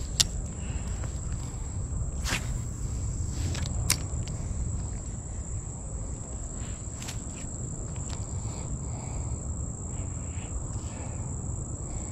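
Steady high-pitched insect drone over a low rumble, with a handful of sharp clicks a few seconds apart as the spinning rod and reel are handled.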